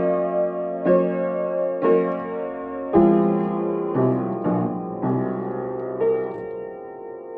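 Piano or keyboard playing slow, sustained chords in a minor-sounding dirge. A new chord is struck about once a second, with a few quicker ones around the middle.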